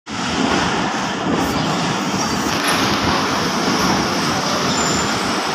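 Steady din of a busy railway station platform with a passenger train standing alongside.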